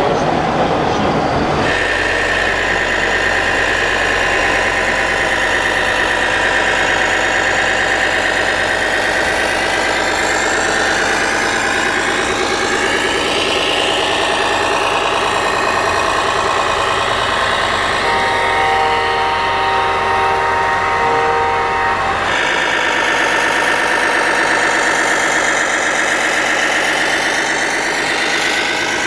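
RC model trucks and construction machines running, with a pitched motor sound rising and falling. From about 18 to 22 s, a multi-tone horn sounds steadily for about four seconds.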